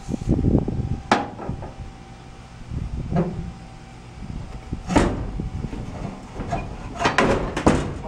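Metal knocks and clanks from handling a step van's tubular steel seat frame, with a sharp knock about a second in, a louder one about five seconds in and a quick cluster of clanks near the end, over a low background rumble.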